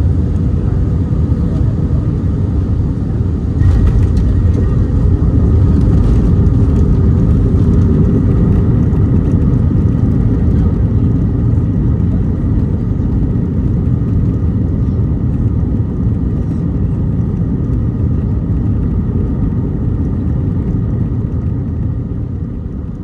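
Cabin noise of an Airbus A319-114 on its landing roll: a loud, steady rumble that jumps louder about four seconds in, then slowly fades as the plane slows.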